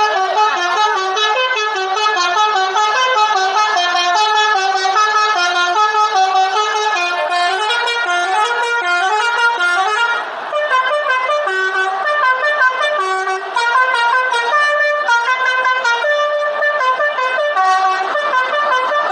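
Bus telolet horn, a multi-trumpet musical air horn on a bus, playing a continuous tune of short notes that step up and down several times a second, with a brief break about ten seconds in.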